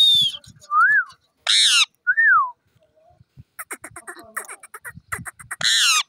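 Caged Psittacula parakeets calling: a loud high screech, two short whistled calls that rise and fall, a second harsh screech, then a run of fast chattering and another loud screech near the end.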